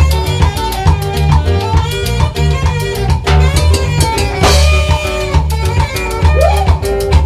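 Live norteño band playing an upbeat dance number, with a steady bass line, drum kit beat and a lead melody.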